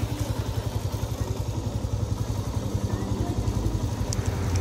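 Motorcycle engine running at low revs with a steady, even chugging pulse, getting a little louder near the end as the ride gets under way.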